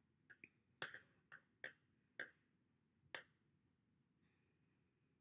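A handful of faint, sharp clicks on a hard countertop as hands roll play dough into long snakes, about seven in the first three seconds, then they stop.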